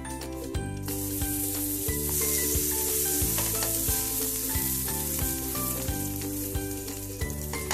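Buttered pav buns sizzling on a hot tawa, the sizzle starting about a second in as the bread is laid down and pressed with a wooden spatula. Background music with a steady beat plays underneath.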